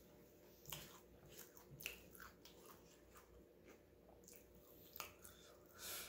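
Quiet close-up mouth sounds of a person chewing a sub sandwich, with a few sharp clicks and a louder, noisier burst near the end.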